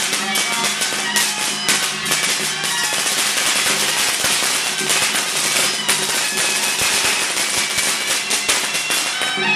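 A long string of firecrackers crackling rapidly and continuously, stopping shortly before the end. Ritual music with a steady low tone carries on beneath it.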